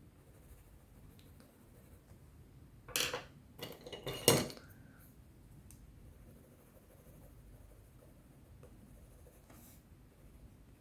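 Colored pencils clattering against each other as they are handled: a quick cluster of hard clicks and knocks about three seconds in, ending in the loudest knock near four and a half seconds with a short ring after it.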